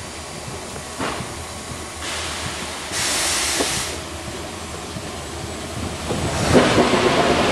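Steam hissing from between and beneath the coaches of a standing steam-hauled train, over a low rumble. A sharper, louder hiss lasts about a second from about three seconds in, and a broader, louder rush of steam builds near the end.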